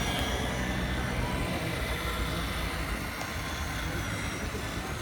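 Small electric motors and hydraulic pump of scale RC construction models working, a faint whine that shifts in pitch, over a steady low rumble.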